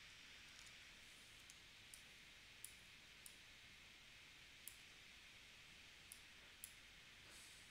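Faint, sharp clicks of a computer mouse, about eight scattered irregularly, over a steady low hiss of room tone.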